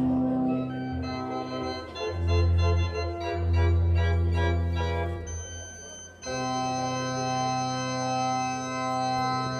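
Church organ playing slow, sustained chords, with a brief break about six seconds in followed by a long held chord.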